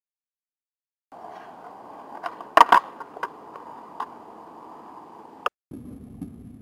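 Skateboard wheels rolling on concrete, starting about a second in. About two and a half seconds in come two sharp clacks of the board in quick succession as it is popped into a pop shove-it, with a few lighter clicks around them. The rolling cuts off abruptly near the end.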